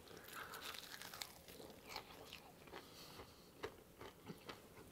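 Faint crunching and chewing of a man biting into a crisp piece of flour-and-egg-coated fried chicken, with scattered small crackles.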